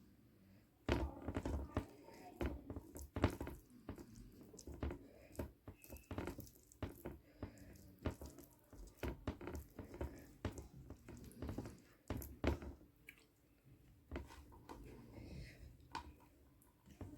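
A person eating close to the microphone: wet chewing and lip smacks with irregular clicks and soft thuds throughout.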